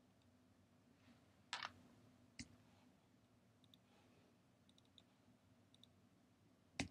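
Near silence with faint computer mouse clicks: a few single and double clicks, the loudest near the end, over a faint steady low hum.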